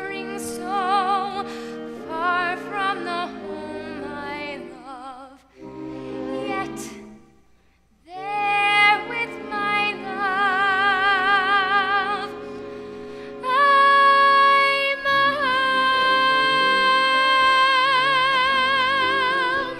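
A young woman singing a slow musical-theatre ballad with wide vibrato over sustained instrumental accompaniment. After a short pause midway she ends on a long high note, held for the last six seconds.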